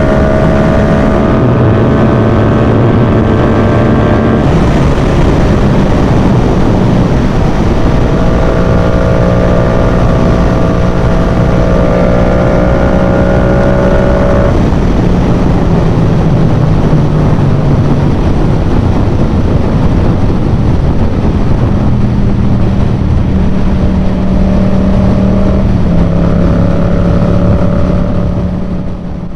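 Yamaha MT-07's parallel-twin engine running through a Yoshimura full exhaust while riding. The engine note holds level at a steady throttle and steps to a new pitch a few times, over a constant rush of wind and road noise. It fades out near the end.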